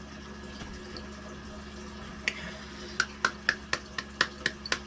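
Hands patting or clapping together, sticky with a jelly-like soap mixture: a single smack a little after two seconds in, then a quick even run of sharp smacks about four a second from about three seconds in.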